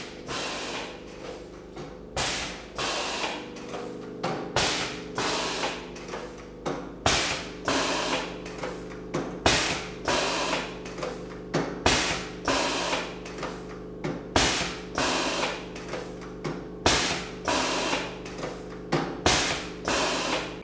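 Joraco INDEX-AIRE Model 2000 air-driven six-station rotary indexing press cycling: a sharp hiss-and-clunk about once a second as the ram strokes and the table indexes in turn, over a steady hum.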